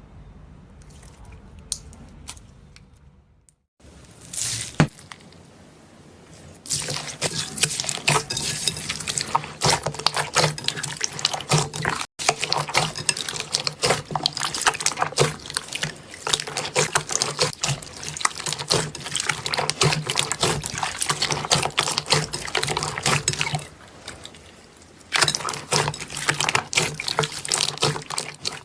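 Slime being squeezed and worked by hand, making dense wet crackling and popping, after a few quieter seconds and with a short break near the end.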